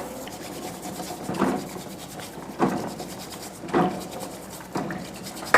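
Raw oyster shells being scrubbed clean of mud, a short scraping stroke about once a second.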